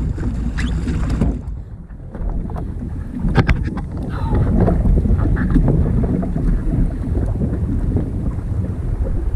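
Wind buffeting the microphone and water slapping against a jetski's hull, a steady low rumble that eases off briefly about a second and a half in. A sharp knock sounds about three and a half seconds in.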